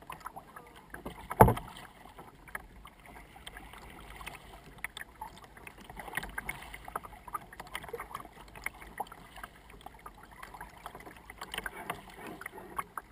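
Kayak being paddled on a river: irregular paddle splashes and water lapping against the hull, with one loud knock about a second and a half in.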